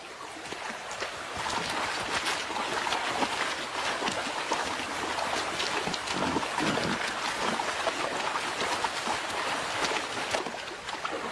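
Shallow river water rushing and splashing as a herd of wild boar, sows with piglets, wade across it, with many small splashes over the steady flow of the stream.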